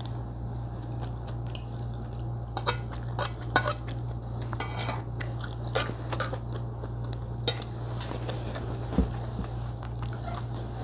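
Metal spoon clinking and scraping against an enamel soup plate at irregular moments while a person eats soup and rice, with chewing between spoonfuls. A steady low hum runs underneath.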